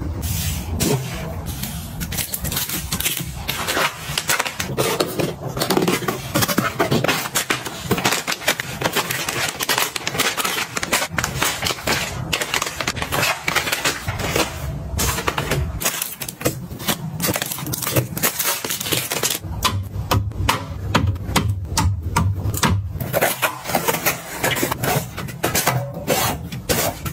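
Plastic snack packets crinkling and rustling as they are handled and stacked on a wire rack, with irregular knocks and clatter of items being set down.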